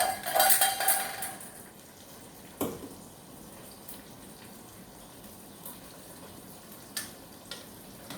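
Metal pots and utensils clattering with a brief ringing in the first second or so, then a single knock and a couple of light clicks later on, over a low steady hiss.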